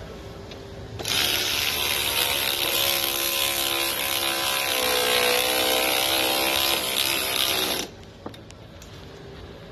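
Cordless power tool's motor and gearing running for about seven seconds, driving in a 13 mm bolt that mounts the new AC condenser. The pitch dips in the middle as the bolt loads up, and the tool cuts off sharply.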